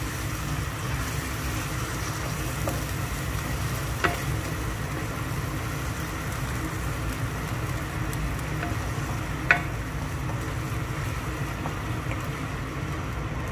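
Fish-head curry with freshly added coconut milk sizzling in a non-stick wok as a wooden spatula stirs it, over a steady low hum. The spatula knocks sharply against the wok twice, about four seconds in and again about nine and a half seconds in.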